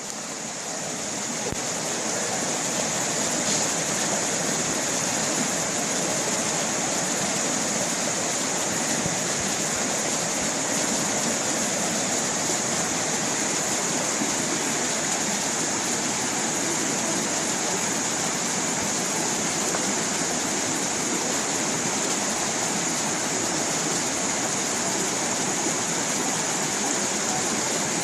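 A small stream of water rushing and splashing steadily, with a bright hiss, fading up over the first few seconds.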